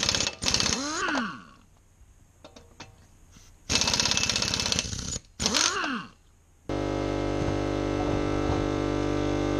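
Pneumatic impact wrench hammering the lug nuts off a rear wheel in two rattling bursts, each followed by the tool spinning freely, rising then falling in pitch. About two-thirds of the way through, steady background music takes over.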